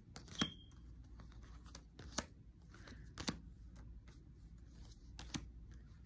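A few light taps and clicks spaced out over several seconds, over a faint low steady hum: tarot cards being handled and set down.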